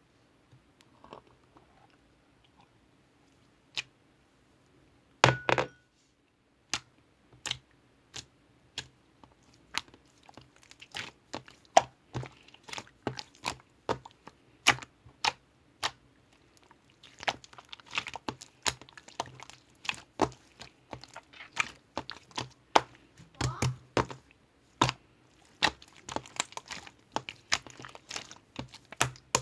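An irregular series of sharp taps and knocks, sparse at first and coming several a second after about ten seconds, with a light crinkling rustle between them in the second half.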